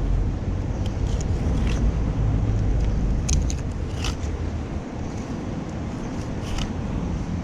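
Wind buffeting the microphone as a steady low rumble, with a few short scrapes and clicks from knife work while a mullet is filleted.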